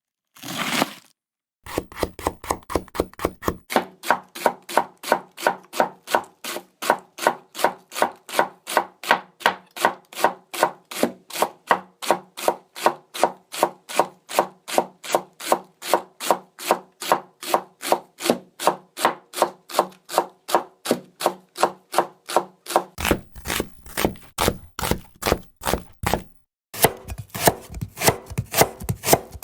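Japanese kitchen knife (houchou) chopping an ingredient on a cutting board in a quick, even rhythm of about three to four strokes a second. A brief rustle comes just before the chopping starts. The rhythm breaks off twice, and after the second break the board rings at a different pitch as a new batch is cut.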